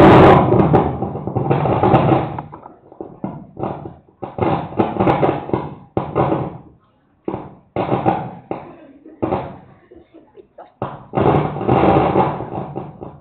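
A person's voice speaking in bursts of phrases with short pauses, loud and close to the microphone.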